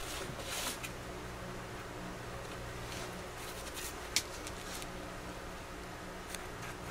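Small clicks and rustles of a plastic repair epoxy package being opened and handled, with one sharp click about four seconds in, over a steady low hum.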